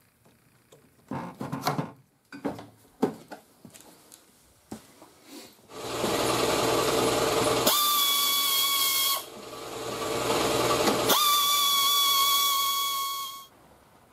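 Plastic electrical connector clicking and rattling as it is unplugged, then a pneumatic air tool on a shop air hose running in two long stretches: a loud air hiss with a steady whine on top, as fasteners are taken out to strip the front end.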